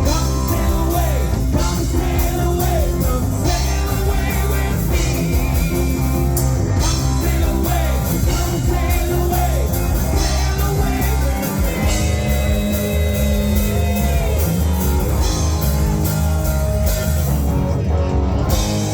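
Live yacht rock band playing with a singer, guitar and drum kit.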